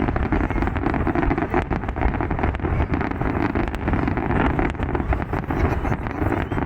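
Fireworks crackling and popping in quick succession over a steady low rumble, with wind buffeting the microphone.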